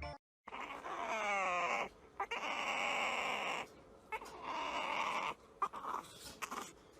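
A puppy whining and whimpering in three bouts, the first with a wavering, falling pitch.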